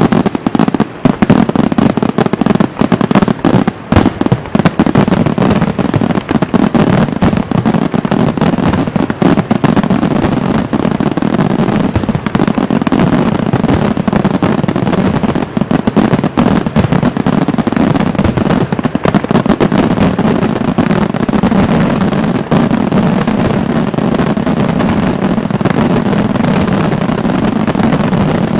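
Fireworks display in a dense barrage: aerial shells bursting and crackling so fast that the bangs run together without a pause, with more separate loud bangs in the first few seconds.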